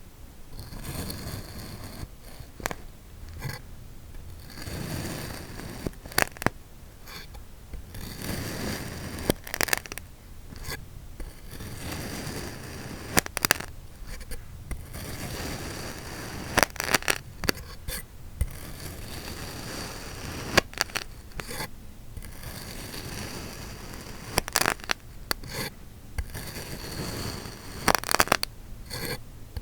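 Kinetic sand being cut and scraped: gritty scraping strokes with sharp crunchy clicks at irregular intervals.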